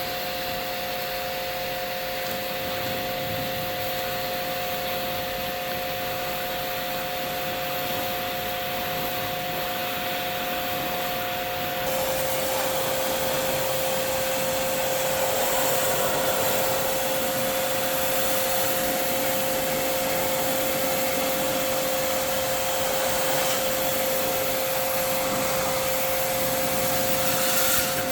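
A small electric motor running steadily with a constant whine over a rushing, rubbing hiss. The hiss grows brighter and a little louder about twelve seconds in.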